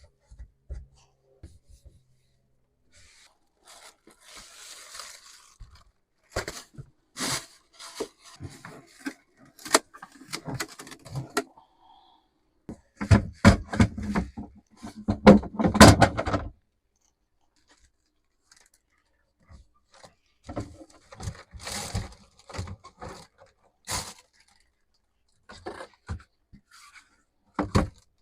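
Scattered knocks, clicks and scrapes of plastic parts being handled while a portable van toilet is cleaned and refilled, with a louder stretch of rubbing and knocking between about 13 and 16 seconds in.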